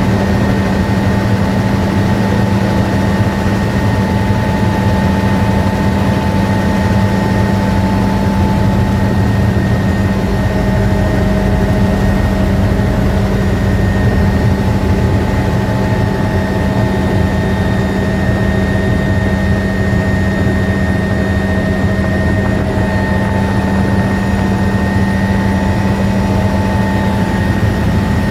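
Helicopter in flight: a steady drone of engine and rotors, with a few held tones over it.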